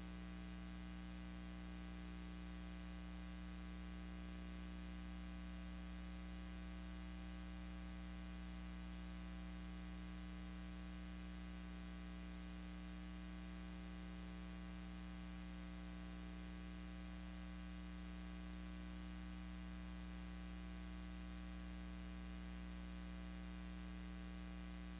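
Steady electrical hum with a stack of overtones under an even hiss; no other sound.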